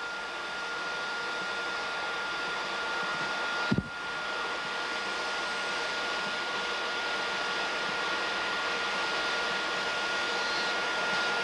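Hot-air heat gun blowing steadily, with a steady high whine from its fan, as it shrinks the sleeve of a waterproof heat-shrink crimp connector onto a wire. A brief click about four seconds in.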